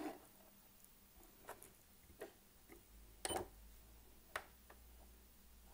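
Near silence broken by a few faint, scattered clicks and light taps as thread and quilt layers are handled at a sewing machine, the loudest a little past the middle; no stitching is running.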